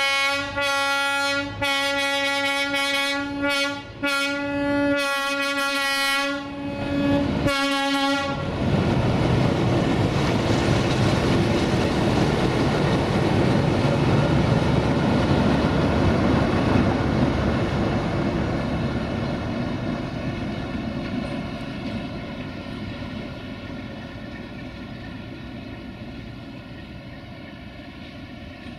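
A Class 060-DA (LDE2100) diesel-electric locomotive sounds its horn in a run of several blasts over the first eight seconds. It then passes close by with its Sulzer diesel engine running hard and its wheels clattering over the rail joints. The sound fades as it moves away.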